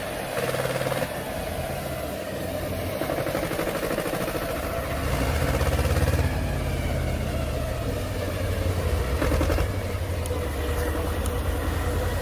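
Tractor engine running under load, swelling louder about five seconds in and again near ten seconds.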